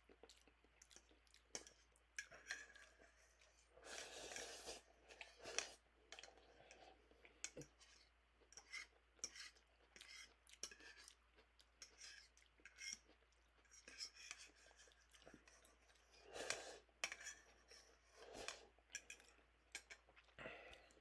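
Quiet eating sounds of instant noodles from a bowl: slurping and chewing, with small clicks of a metal utensil against the bowl. Two louder slurps come a few seconds in and again later on.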